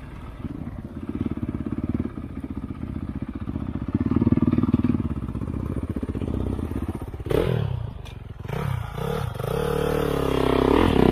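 Honda CRF450 single-cylinder four-stroke dirt bike engine heard from the rider's seat, running steadily on the throttle. About seven seconds in comes a brief clatter, then the revs drop and climb again several times, loudest near the end.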